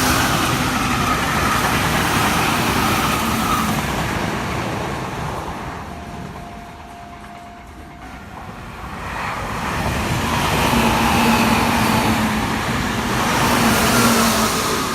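Meitetsu Inuyama Line electric trains passing at a level crossing: one train's running noise fades out over the first few seconds, then after a brief lull a second train approaches and passes loudly from about nine seconds in, with a steady humming tone.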